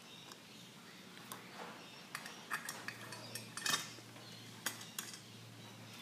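Faint scattered clicks and light metallic clinks of small metal parts or tools being handled, over a steady low hum.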